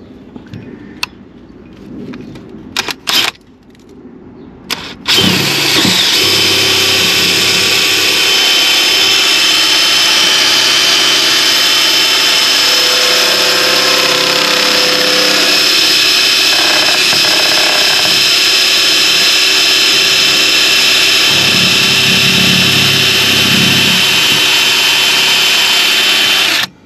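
A few light clicks, then about five seconds in a power drill spins up and runs steadily at speed, driving a 1-1/8-inch hole saw on an extension into wood. It cuts for about twenty seconds and stops abruptly near the end.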